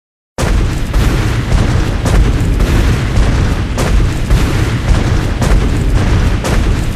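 Tyrannosaurus rex roar sound effect: a loud, deep, rumbling roar that starts abruptly about half a second in and holds without a break, with sharp crackling peaks through it.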